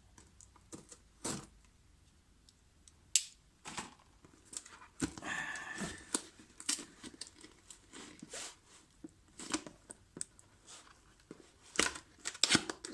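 Cardboard box and packaging being handled and opened: scattered knocks and clicks with tearing and crinkling noises.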